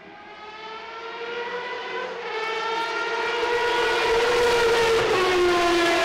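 Toyota TS010's 3.5-litre V10 racing engine at speed, a high-pitched howl growing steadily louder as the car approaches. About five seconds in, the note drops as it goes by.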